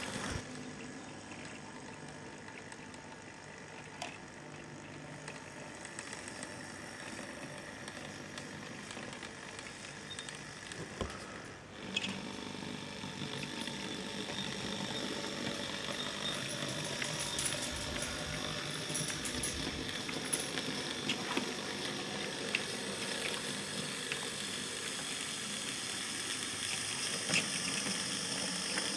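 Hornby J94 saddle-tank model locomotive running with a short goods train on model railway track: a steady whir and rolling rumble with occasional clicks over the rail joints, growing louder near the end as the train comes close.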